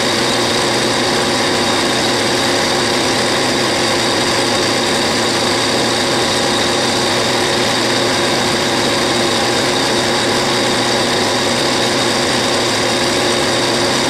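Clausing metal lathe running steadily while a triangular insert tool turns a slender metal pin down to 1/2 inch: an even machine hum with several constant tones that does not change.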